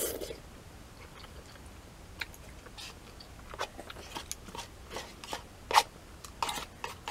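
Close mouth sounds of someone eating udon noodles: a brief noisy intake at the start, then scattered short wet clicks and smacks of chewing, one louder smack near the end.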